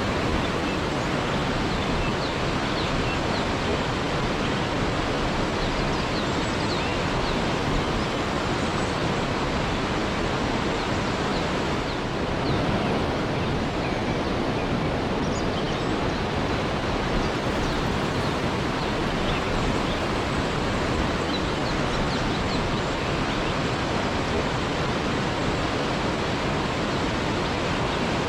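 Waterfall: a steady, unbroken rush of falling water, with faint high chirps scattered through.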